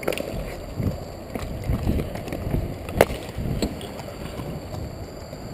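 Inline skates striding and rolling hard on an outdoor rink surface, with irregular low thumps and wind buffeting the body-worn microphone, and one sharp knock about three seconds in.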